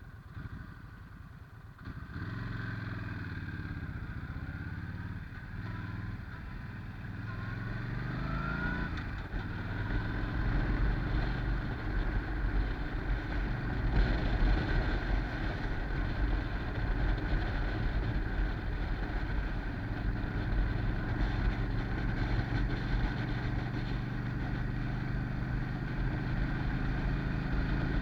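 Yamaha Stryker's V-twin motorcycle engine running, its pitch rising about eight seconds in as it pulls away. It then runs steadily under way, with low wind rumble on the microphone.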